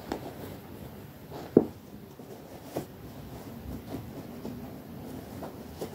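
Cloth rustling as clothes are handled and packed into a canvas tote bag, broken by a few short knocks, the sharpest about a second and a half in.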